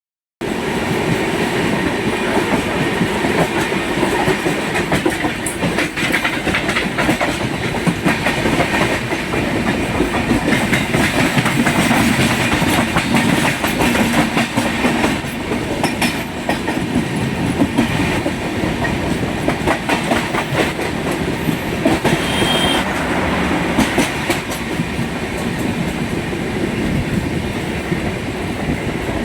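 Passenger train running on the track, wheels clattering steadily over rail joints, with a short high squeal about two-thirds of the way through.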